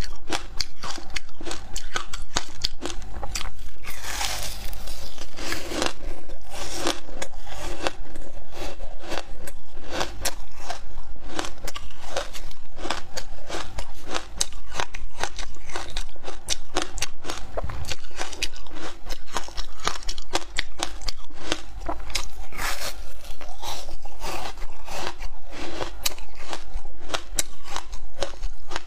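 Frozen ice being bitten and chewed close to the microphone: a dense, continuous crunching of sharp cracks and crackles. Louder bites break through about four, seven and twenty-three seconds in.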